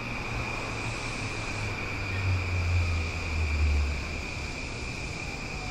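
Train on a station platform: a low rumble swells about halfway through and fades, with a faint falling whine near the end, over a steady high-pitched tone.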